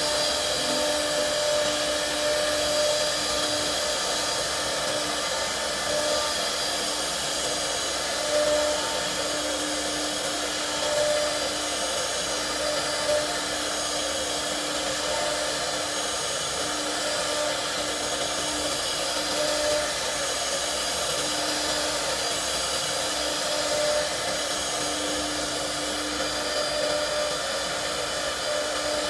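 CNC router spindle running steadily: a constant tone over an even rushing noise, with a few brief rises in level.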